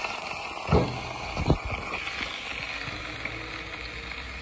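Metal steamer insert knocking twice against its stockpot as it is lifted out of the steaming cooking liquid, over a steady hiss.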